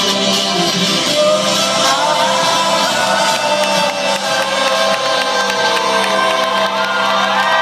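Live folk-rock band playing with singing, a sustained sung melody over full band accompaniment, with some crowd noise.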